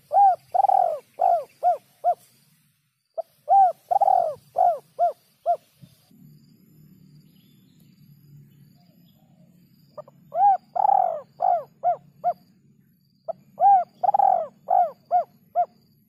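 Spotted dove cooing: four repeated phrases of about six hollow notes each, each phrase about two seconds long, with a pause of about four seconds in the middle.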